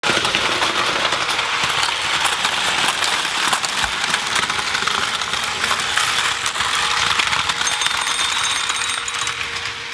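Battery-powered Plarail toy trains running on plastic track, a dense, steady clattering rattle.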